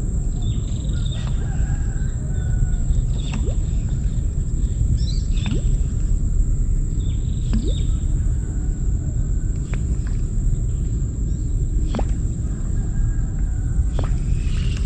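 Outdoor ambience: a steady low rumble, a constant high whine, and short bird chirps every second or two.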